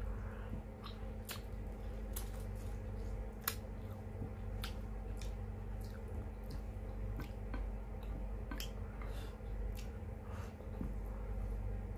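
Close-miked eating of vinegar-stewed fish: wet chewing and lip smacking with scattered sharp mouth clicks, over a steady low hum.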